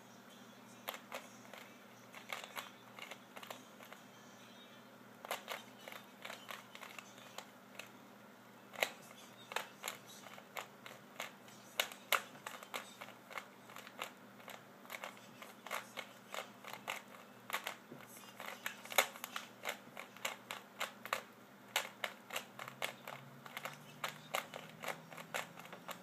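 Plastic 3x3 Rubik's Cube being turned by hand as it is solved: a quick, irregular run of sharp clicks and clacks as the layers snap round, often in fast flurries.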